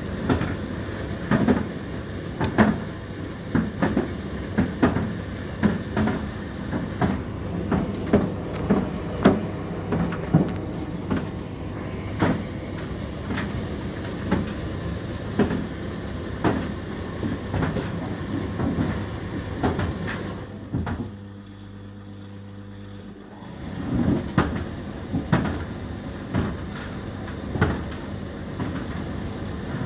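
Indesit IDC8T3 condenser tumble dryer running: the load knocks in the turning drum about every two-thirds of a second over a steady motor hum. About 21 seconds in the tumbling stops for two or three seconds, leaving only a low hum, then starts again.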